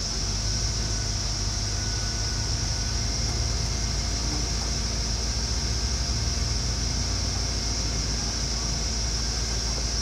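Hummer H3's engine running steadily at low revs as the 4WD crawls slowly over rock, with a constant high hiss over it.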